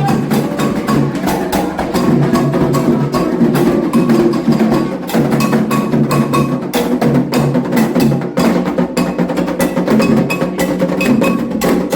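Candomblé ritual drumming: atabaque hand drums and a struck metal bell keeping a fast, steady rhythm of many strokes a second.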